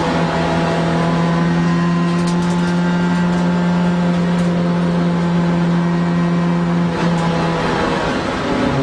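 Alfa Romeo race car's engine heard from inside the cockpit, holding one steady pitch along the track. About a second before the end the note breaks up and drops away.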